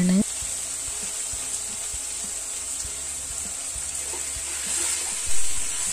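Sliced ivy gourd frying in oil in a pan on a gas burner, a steady sizzle; a short louder bump near the end.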